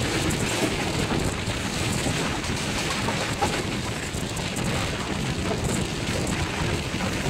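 Steady running noise of a passenger train heard from on board, with wind blowing across the microphone.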